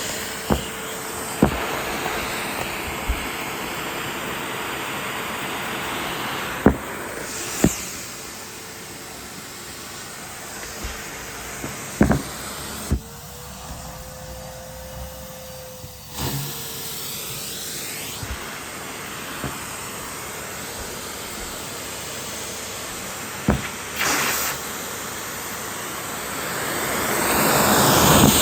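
A Henry (Numatic) canister vacuum cleaner running with a steady hum and rush of air, with sharp clicks and knocks at its nozzle. For about three seconds midway the rush of air falls away and the motor's hum rises slightly in pitch, then it returns and grows louder near the end.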